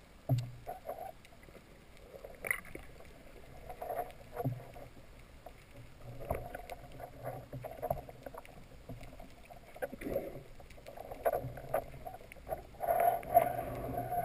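Underwater sound picked up through a camera housing: irregular muffled gurgles and knocks, a little louder near the end.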